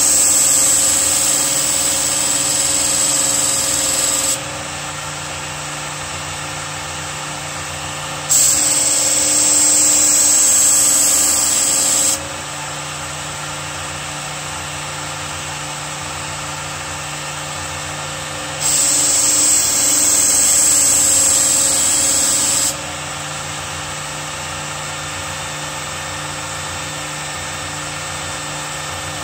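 Work Sharp Ken Onion Edition electric belt knife sharpener running with a steady motor hum. Three times, for about four seconds each, the steel knife blade is drawn across the moving abrasive belt, adding a loud, hissing grind.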